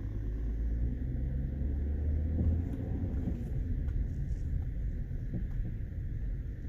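Lincoln MKT driving over a rough road: a steady low road rumble with a few faint pops, the sign of worn-out sway bar links.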